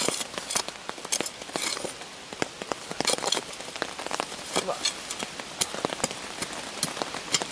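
Cold Steel shovel blade digging into dry chalk and limestone soil full of roots and flint: repeated sharp scrapes, chops and crunches of the steel blade on stone and earth.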